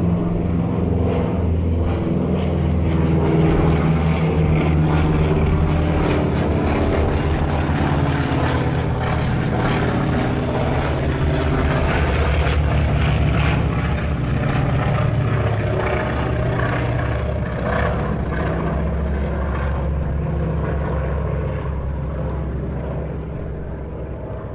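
Propeller airplane engine running steadily, with a low droning hum, then fading out near the end.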